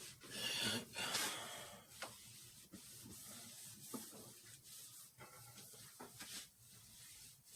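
Faint rubbing and scraping with a few light knocks as raw chicken is cut and handled with a knife on a cutting board. The scraping is strongest in the first second and a half.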